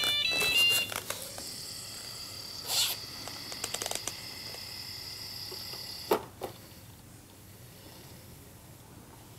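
iRobot Braava 380t floor-mopping robot starting up: a short run of electronic beeps at stepped pitches ends about a second in, then a faint steady high whine as it drives off across the floor. There is a soft knock near three seconds and a louder short knock about six seconds in, after which it goes quieter.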